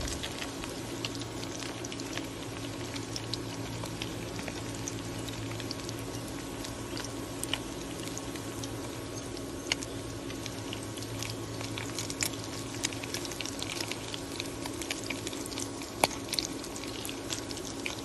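Salmon patties frying in hot oil in a pan: a steady sizzle with frequent small crackles and a few sharper pops, over a steady low hum.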